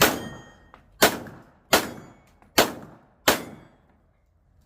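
Pistol shots on a Steel Challenge stage: five shots about a second apart, uneven, with the hit steel plates ringing briefly after the first.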